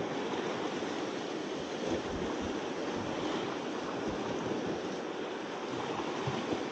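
Steady wash of sea surf, with low gusts of wind buffeting the microphone now and then.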